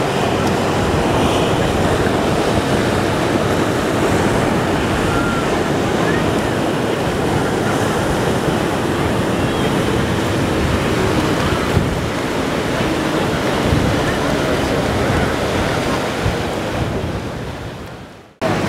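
Waves breaking and surging water, with wind buffeting the microphone; the rush fades down near the end and cuts off.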